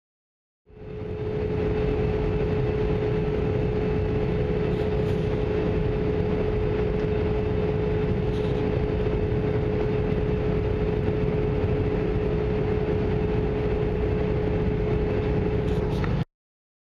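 Steady drone of an airliner cabin in flight: jet engine and airflow noise with a constant hum running through it. It fades in about a second in and cuts off suddenly near the end.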